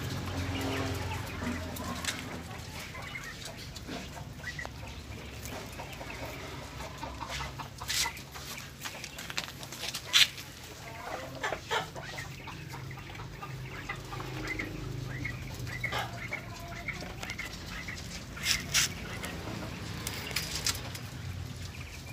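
Young chicks cheeping and clucking in short scattered calls, with a few sharp knocks about 8, 10 and 19 seconds in, over a steady low hum.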